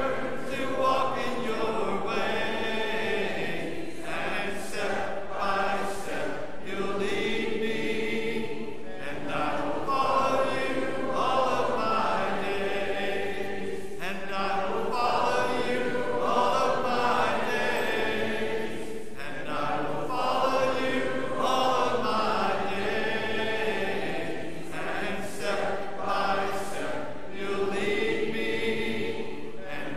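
Church congregation singing a worship song together a cappella, many voices in long sustained phrases with short pauses for breath between them.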